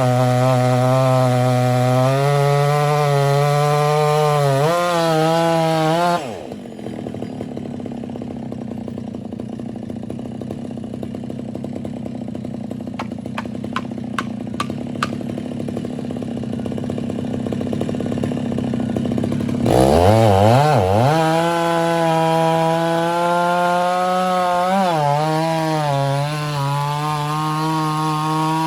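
Two-stroke chainsaw running at high revs, its pitch wavering as the chain works through wood. About six seconds in it cuts abruptly to a lower, steadier machine drone with a few sharp clicks. About twenty seconds in, the saw revs up again and runs on.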